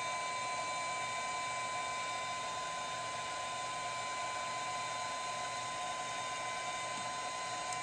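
Steady whirring hum with a thin high whine running over it, unchanging throughout; no separate clicks or knocks stand out.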